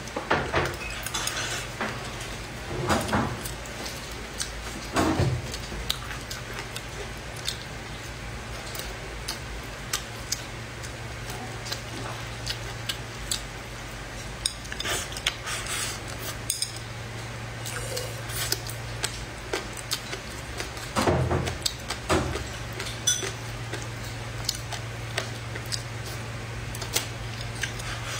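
Chopsticks clicking and scraping against a plate of food, with a few louder bursts of eating noise, over a steady low hum.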